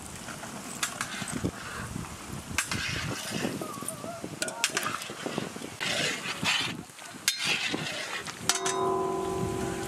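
A metal ladle clinks and scrapes while stirring thick chicken masala in a large iron kadai, with voices in the background. A steady held tone sounds for about a second near the end.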